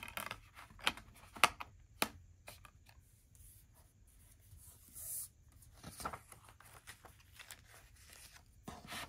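Hands handling a Blu-ray SteelBook case: a scattered series of sharp clicks and taps, loudest about one and a half seconds in, with a short scraping rub about five seconds in.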